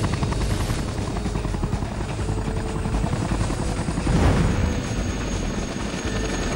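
Helicopter in flight: rapid, even chopping of the rotor blades over a steady engine drone, with a louder rush about four seconds in.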